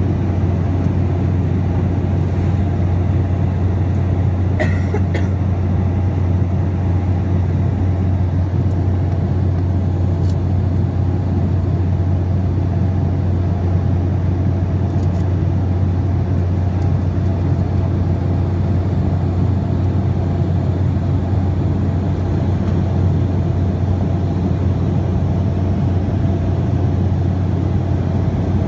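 Steady drone of an airliner's turbofan engines and rushing air, heard inside the cabin during the climb after takeoff, with a strong low hum underneath.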